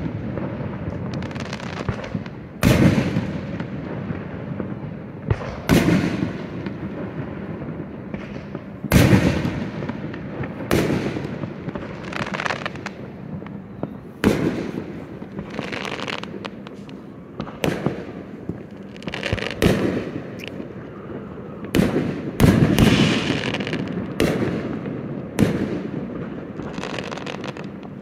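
Aerial firework shells bursting in a steady run of bangs every one to three seconds, each trailing off in a rolling rumble, with a quicker cluster of bursts past the middle.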